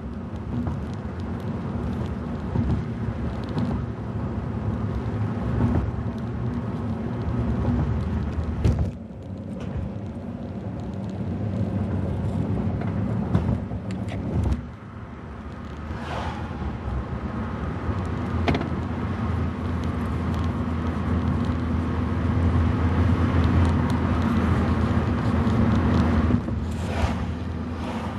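Steady road and engine hum heard from inside a moving car, mostly tyre noise on the bridge deck. It dips briefly twice, has a few light thumps, and grows louder for a stretch near the end.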